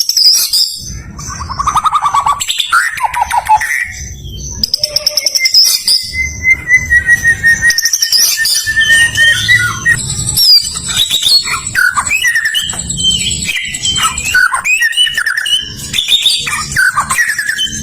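White-rumped shama singing a varied, continuous song of clear whistles, long sliding notes, fast trills and rattling chatter.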